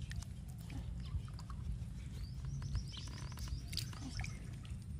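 Faint sloshing and dripping of water as a hand stirs and picks through small fish in a plastic basin of water, with scattered small ticks over a steady low rumble.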